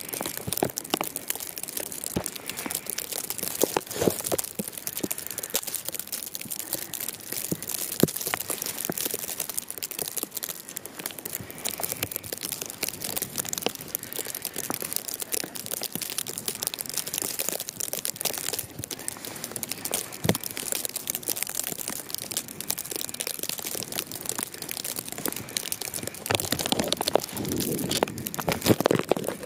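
Dense, irregular crackling and crinkling right at the microphone, with a few louder knocks and a louder stretch near the end.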